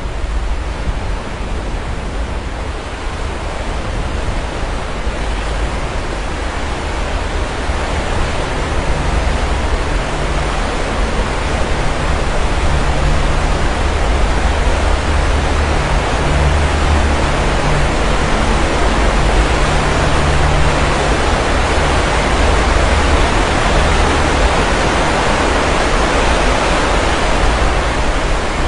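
Sea waves washing onto the shore: a continuous rushing surf with a deep rumble underneath, slowly swelling louder over the first twenty seconds.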